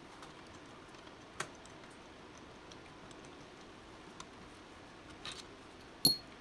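Scattered light clicks and taps of metal tools or parts being handled, then one louder metallic clink near the end that rings briefly.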